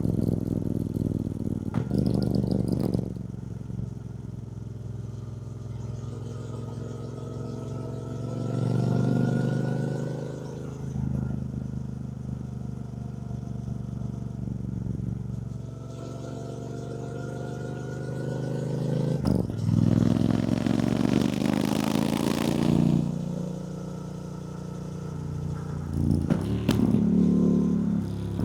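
2024 Triumph Bonneville T120's 1200cc parallel-twin engine running under way. Its pitch rises as the bike accelerates and drops back at each gear change, with stretches of rushing noise over it.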